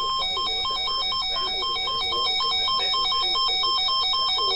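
Electronic alert tone warbling rapidly back and forth between two pitches, about five switches a second, steady and loud throughout.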